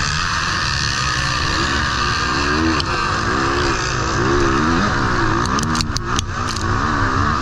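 Motocross bike engine heard from onboard, its note rising and falling again and again as the throttle is worked over a rutted sand track. A few sharp clicks come near the end.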